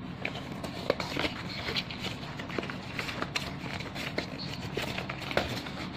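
Hands handling a cardboard box and plastic packaging during an unboxing: irregular clicks, taps and crinkles over a steady low background hum.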